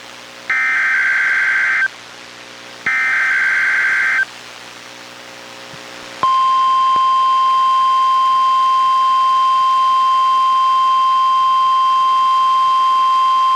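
NOAA Weather Radio Required Weekly Test: two bursts of SAME digital header data, each about a second and a half long with a second between them, then, about six seconds in, the steady 1050 Hz NOAA Weather Radio warning alarm tone starts and holds.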